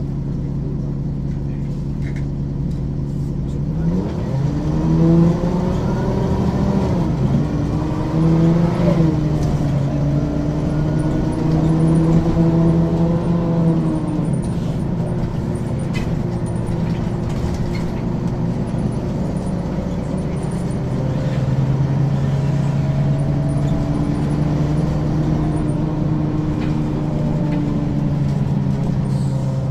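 Ikarus 435 articulated bus's diesel engine idling steadily, then pulling away about four seconds in. The engine pitch rises, drops twice as the ZF automatic gearbox changes up, holds, then falls back when the throttle eases and settles again into a steady drone.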